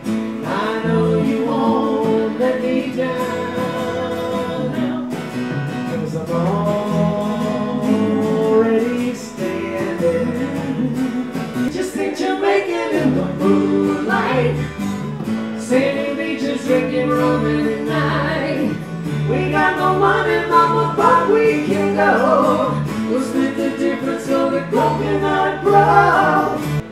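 A live acoustic band playing: two strummed acoustic guitars and an electric bass under male and female voices singing together, with a short drop in the playing about halfway through.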